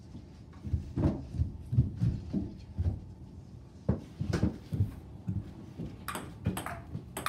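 A run of dull, low thumps with some knocking, then near the end a few sharp clicks of a ping pong ball bouncing as play starts again.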